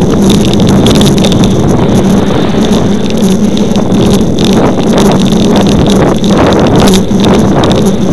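Heavy wind buffeting on the microphone of a camera riding on a moving bicycle: a loud, steady rush with frequent crackling gusts.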